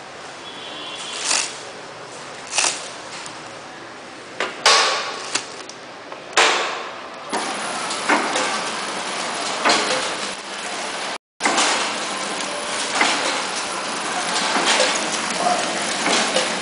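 Flow-wrapping packaging machine running with a dense mechanical clatter of clicks and clacks, louder from about seven seconds in; before that there are only a few scattered sharp knocks.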